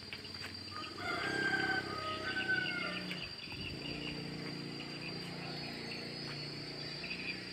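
A rooster crows once, about a second in and for about two seconds, over a steady high-pitched insect drone. A low hum continues underneath after the crow.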